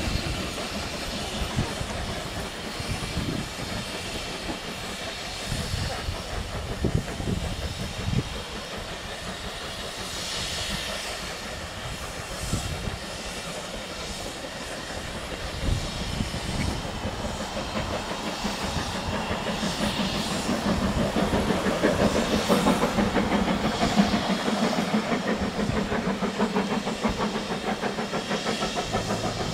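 Heritage steam train on the move: the rumble and clatter of coaches, then a steam locomotive working in the distance. Its sound grows louder over the last ten seconds, with a regular beat near the end.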